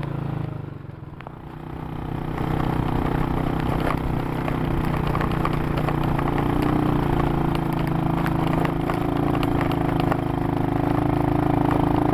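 Motorcycle engine running under load on an uphill climb; the engine sound dips about a second in, then picks up and holds steady. The rider is doubtful the bike can make the slope.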